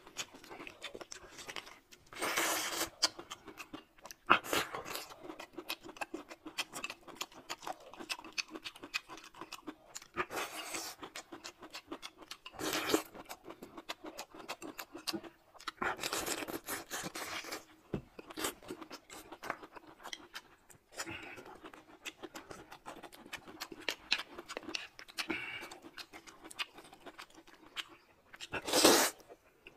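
Close-miked eating sounds: steady chewing with many small wet clicks and crunches, broken by several short slurps, and a loud slurp of noodles near the end.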